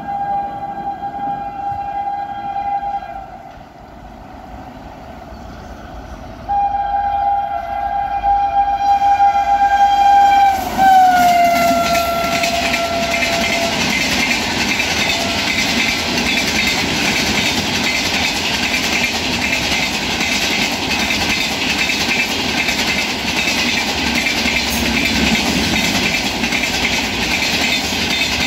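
Express passenger train running through at speed. The locomotive's horn gives a long blast, then a second longer one about three seconds later whose pitch drops as the locomotive passes. The coaches then rush past with a steady rattle and clickety-clack of wheels on rail joints.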